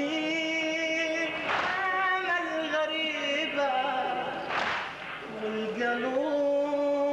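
A man chanting a Shia Muharram lament into a microphone in long, held, wavering notes, with a short noisy burst about every three seconds.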